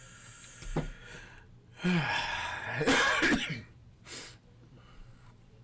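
A person coughing, one loud burst about two seconds in that lasts about a second and a half.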